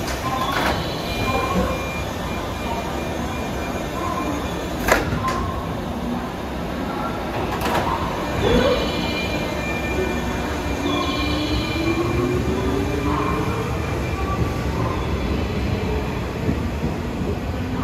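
JR 201 series electric train running past and pulling away, with three sharp clunks in the first eight seconds, which fit its line breaker cutting in and out. From about halfway its armature-chopper traction equipment and motors give a whine that slowly rises in pitch as the train gathers speed.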